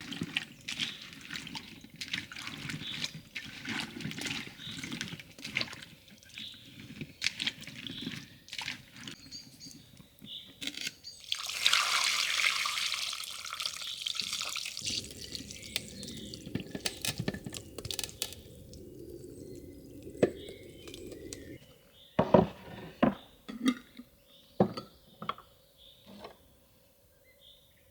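Kitchen work with water: splashing and handling clatter, then water poured or running for a few seconds around the middle, followed by several sharp knocks near the end.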